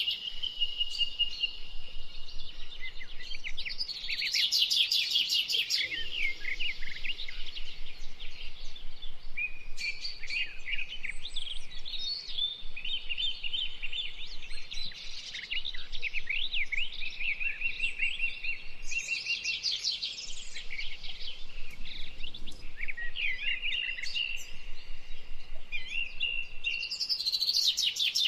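Several birds chirping and calling over one another in a dense chorus, with bursts of rapid trills about four seconds in, around nineteen seconds, and near the end.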